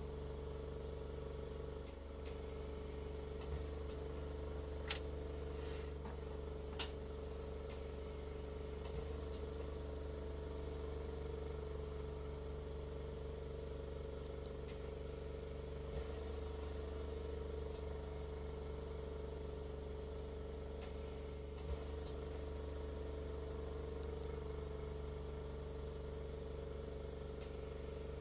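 Small gas soldering torch burning with a steady hiss as it heats a sterling silver heart cufflink for soldering, with a few light clicks of steel tweezers against the work.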